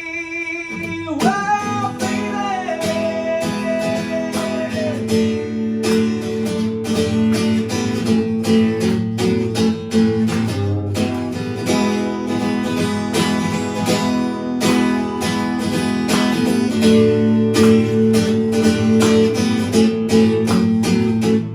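Acoustic guitar strummed steadily in a song's instrumental ending, after a last held sung note fades about a second in.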